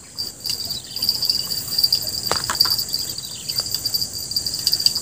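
Steady high-pitched insect chorus trilling and pulsing from the riverside vegetation, growing louder about half a second in. A single short click sounds about two seconds in.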